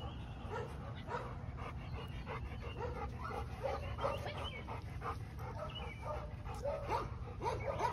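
A dog giving a string of short whines and yips, several sliding upward in pitch, over a steady low rumble.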